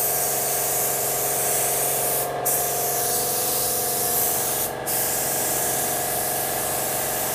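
LVLP spray gun (Rongpeng R500, sold as YT160) spraying base coat at about 20 PSI: a steady hiss of air and atomised paint that cuts out twice for a moment as the trigger is let off between passes. A steady hum runs underneath.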